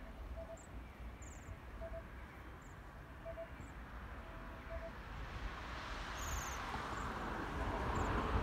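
Bohemian waxwings giving short, high, tinkling trilled calls, a few at a time with gaps between, one louder call a little after six seconds. A rushing background noise swells from about halfway through and is the loudest thing by the end.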